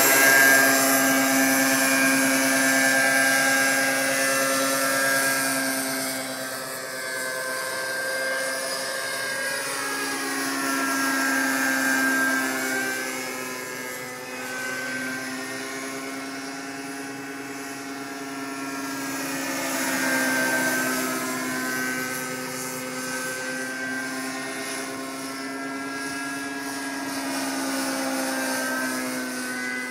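Radio-controlled scale MD 500 helicopter's engine and rotors whining steadily as it lifts off and flies passes overhead. The sound is loudest at lift-off, and its pitch swoops down and back up twice as the model passes.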